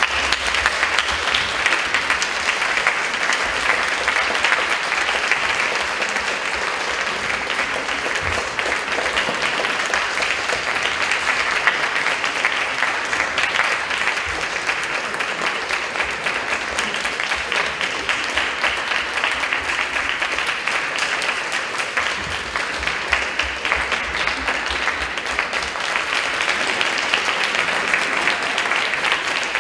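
Audience applauding steadily after a performance in a concert hall.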